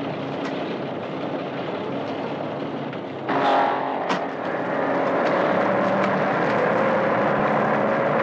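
Old truck's engine running, becoming louder about three seconds in as the truck labours through deep mud. A single sharp knock comes about a second after the rise.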